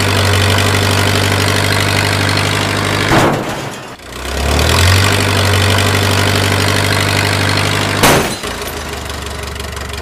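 Truck engine sound effect running steadily, climbing in pitch as it revs up at the start and again about four seconds in. Each run ends in a short crash, about three seconds in and again near eight seconds.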